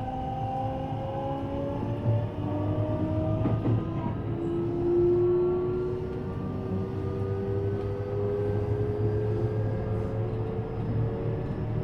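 Running sound inside a JR West 321 series electric train: its traction motors whine in a slowly rising pitch as the train gathers speed, over a steady low rumble from the wheels on the rails.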